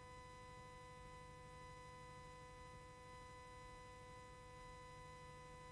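Near silence: a faint steady hum with hiss.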